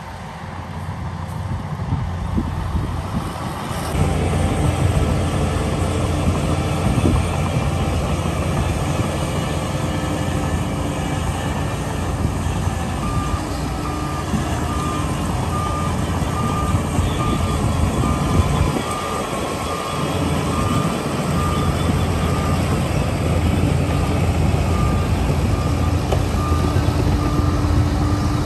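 Heavy dump truck and bulldozer diesel engines running. From about halfway through, a vehicle reversing alarm beeps at an even pace.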